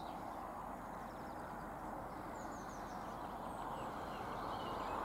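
Quiet riverside ambience: a steady low hiss with faint birdsong over it, many short high chirps repeating throughout.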